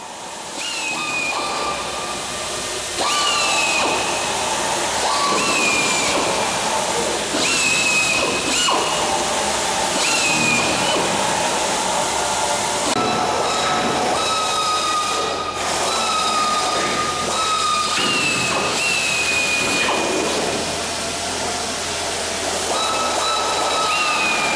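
Air tools running in short repeated bursts, each starting with a sudden high whine that drops slightly in pitch and holds, several overlapping, over a constant hiss.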